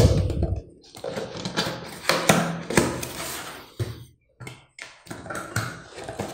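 A cardboard box being handled and opened by hand: a low thump at the start, then irregular scraping, rustling and light taps as the box is turned and its flaps are pulled open.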